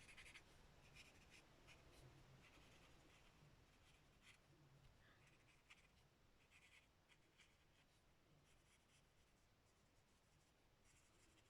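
Faint, intermittent scratching of an alcohol-marker tip stroking across cardstock, in short strokes with pauses between.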